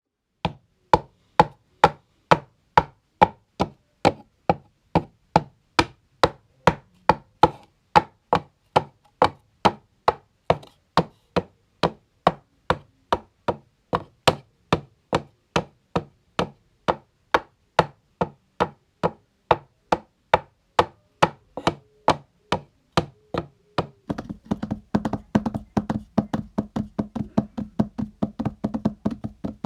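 Homemade horse-hoof sound effect: sharp knocks at an even clip-clop pace, about two to three a second. About 24 seconds in, the knocks become a faster, denser clatter over a steady low hum.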